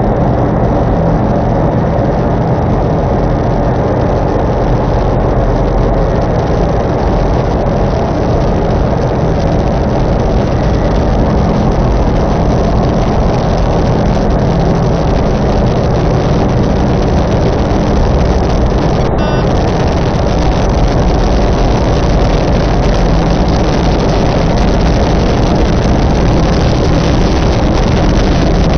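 Experimental noise music: a dense, unchanging wall of loud rumbling noise with steady low hums running through it.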